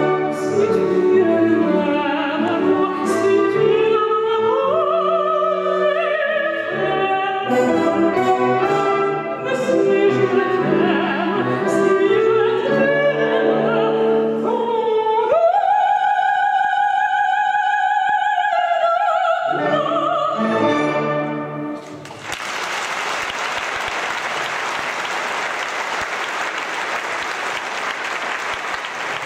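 A woman singing in a classical style with orchestral accompaniment, ending on a long held high note about two-thirds of the way through. The music stops and the audience applauds steadily to the end.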